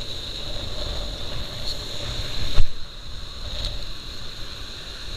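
Strong wind buffeting the microphone, a steady low rumble with a thin high whine running under it, and one sharp knock about two and a half seconds in.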